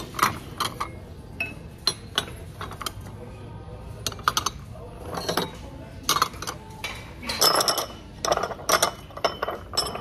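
Ceramic bowls and plates clinking against each other as they are lifted off stacks and set back down: a run of irregular, sharp clinks, busiest about two thirds of the way through.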